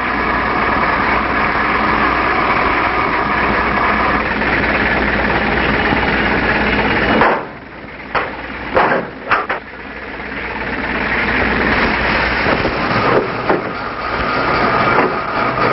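An engine runs steadily with a constant low hum. A little past the middle the running noise drops away and several sharp clanks sound, then the engine noise builds back up.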